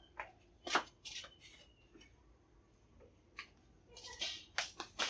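Faint, scattered clicks and rustles of hands handling small plastic spice jars, picking them up and moving them.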